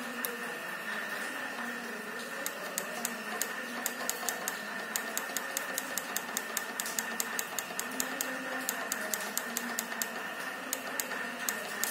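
Rack-mount power supply running, with a steady fan-like hiss and a constant high-pitched whine. From about two seconds in comes a quick, irregular clicking, several sharp clicks a second.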